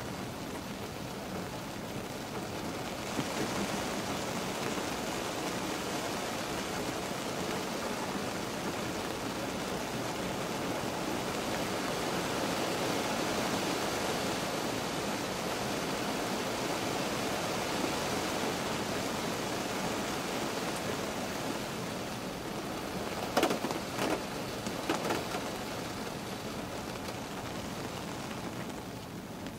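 Rain falling on a car's roof and glass, heard from inside the cabin: a steady hiss that grows heavier about three seconds in, with a few sharp louder taps late on.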